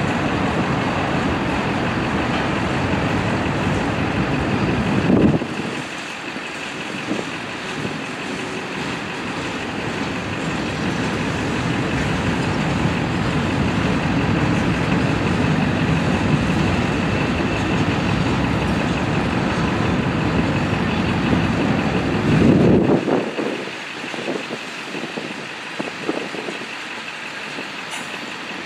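Freight train's covered hopper and tank cars rolling past, a steady rumble and rattle of wheels on rail, with two brief louder swells, about five seconds in and near the end.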